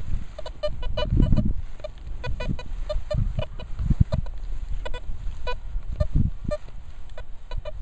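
Nokta Velox One metal detector chattering with short, low-pitched beeps, coming irregularly about three a second as the search coil sweeps over the grass, with low thumps underneath.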